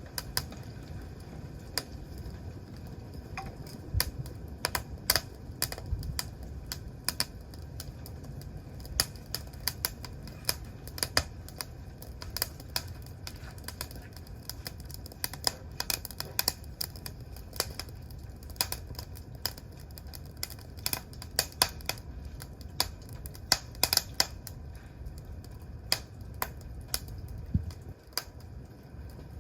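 Wood campfire crackling and popping: many sharp irregular snaps over a steady low rumble of the flames.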